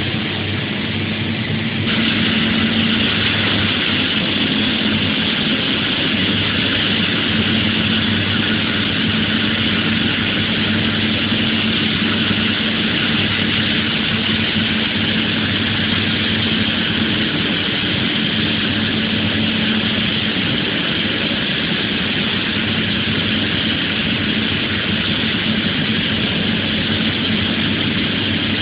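ANT ADS-15RS hydraulic rock saw running and cutting, a steady dense grinding over the steady hum of the carrier machine's engine and hydraulics. The grinding gets louder suddenly about two seconds in and then holds steady.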